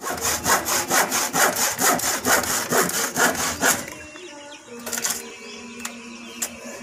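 Hand saw cutting through a wooden board in quick back-and-forth strokes, about three a second, stopping about four seconds in; a couple of faint knocks follow.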